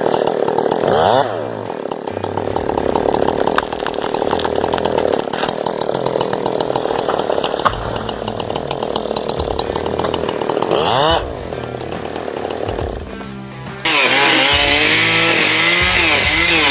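Husqvarna 372 XP X-Torque two-stroke chainsaw running at high revs and cutting through a large tree, its pitch dipping and rising as the chain loads up in the wood. About 14 seconds in the sound changes abruptly and becomes duller. Music plays underneath.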